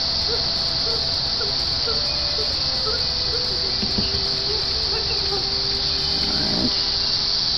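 Steady, high-pitched chorus of insects, with scattered faint short chirps over it.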